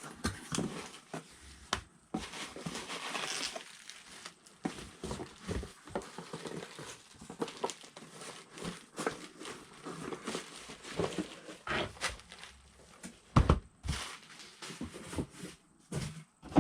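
A Funko Pop box being opened and the figure handled: crinkling and rustling of the cardboard box and its plastic insert, with scattered clicks and taps. There is a louder knock about thirteen seconds in.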